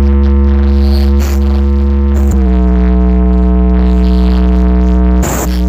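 Stacked sound-system speaker cabinets blasting a very loud, sustained synthesizer bass tone during a sound check. The held note steps down in pitch a little over two seconds in, with a couple of short noisy bursts cutting across it near the end.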